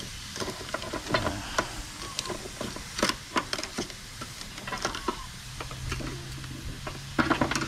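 Metal tongs clicking and scraping against mud crab shells and the barbecue grill as the crabs are turned, over the steady sizzle of the crabs cooking on the hot gas barbecue.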